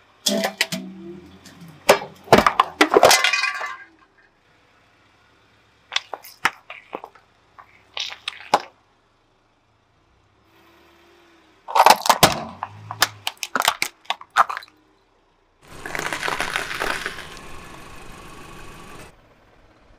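A car tyre rolling over and crushing objects on asphalt: a metal can crumpling, a row of balloons popping and a pile of small brittle shells crunching. The sounds come as four separate bursts of sharp cracks and pops, the last a dense crackling crunch lasting about three seconds.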